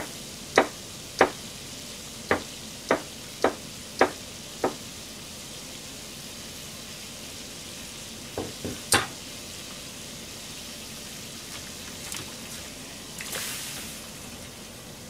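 Knife chopping on a cutting board: eight sharp knocks about every half-second, then three more about nine seconds in, over a steady sizzling hiss from the stove. Near the end a brief rushing splash as cut tofu goes into a pan of simmering water.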